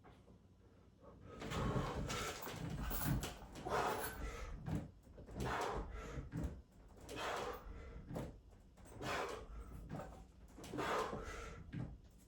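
Heavy breathing during a set of pull-ups: a loud, rushing breath about every two seconds, in time with the reps.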